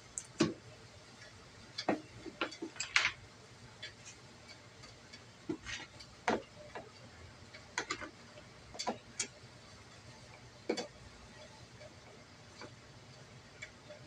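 Irregular clicks and taps of a hand screwdriver and screws against the scooter's hard plastic body panel as the panel screws are worked loose, with a small cluster of them about two to three seconds in.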